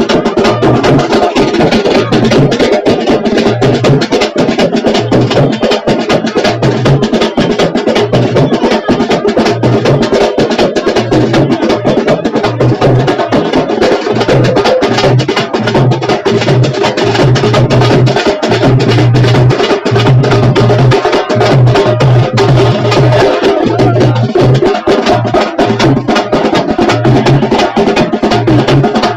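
Loud, fast percussion drumming: a dense run of sharp strokes over a deep pulsing beat.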